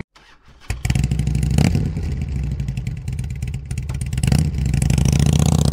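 Motorcycle engine cutting in about a second in and running with a fast, even throb. It swells briefly twice, and the revs rise near the end.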